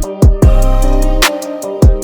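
Background music with a steady beat: deep, booming kick drums that drop in pitch, a held bass line and light ticking percussion.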